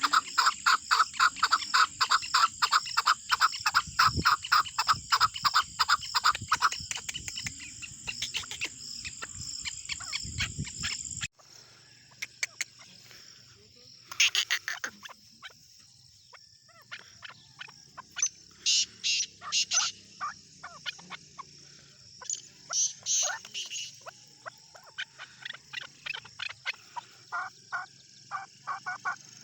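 Chukar partridge calling: a fast, even run of repeated clucking notes, several a second, for about the first eleven seconds. After an abrupt cut the calls come in shorter scattered bursts. A steady high whine runs in the background.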